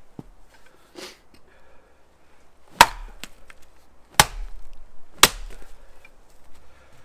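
Axe chopping into wood: three loud, sharp blows a little over a second apart, starting about three seconds in, after a few fainter knocks.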